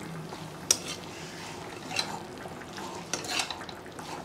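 A spatula stirring and scraping mushroom masala around a kadai, with a light sizzle from the cooking vegetables. A sharp knock about two-thirds of a second in is the loudest sound, with a smaller one near the middle.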